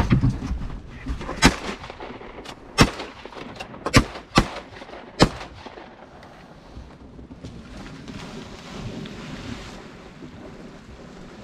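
Duck-hunting shotguns firing: about five sharp shots in quick succession over roughly four seconds, starting a second or so in. A low rumble is heard at the very start.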